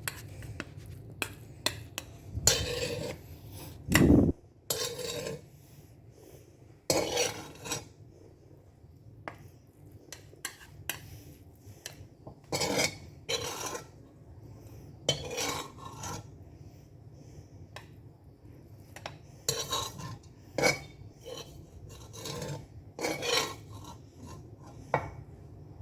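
A utensil scraping and rubbing against a bowl in irregular strokes with pauses, as fried rice is scooped and packed into a small bowl, with a dull knock about four seconds in.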